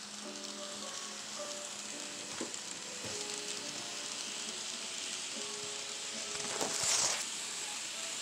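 N scale model trains running past, a steady hiss of small wheels and motors that grows loudest about seven seconds in as a train passes close. Faint short musical notes sound under it.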